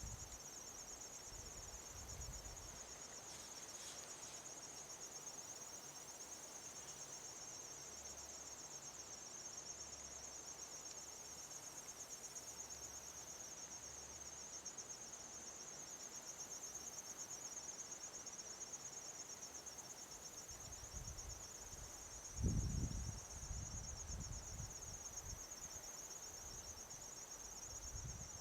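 Crickets chirring in one continuous high, fast-pulsing trill. From about three quarters of the way through, low rumbles come and go; the strongest is a little after they begin.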